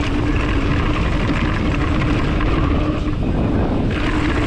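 Mountain bike rolling fast down a dirt trail: wind rushing over the camera's microphone and tyres on packed dirt, with the rear freehub buzzing steadily while coasting. The buzz falls silent for a moment a little after three seconds in.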